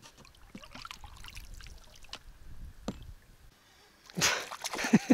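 Water trickling and dripping with small scattered splashes at a small boat on a pond, followed by a louder rush of noise about four seconds in.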